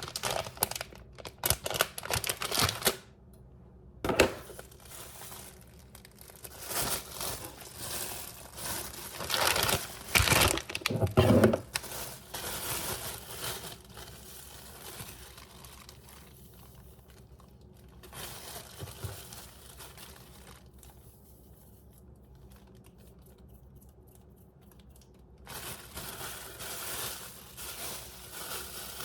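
Packaging being handled and torn open: crinkling and tearing in irregular bursts, with a quieter pause before the rustling starts again near the end.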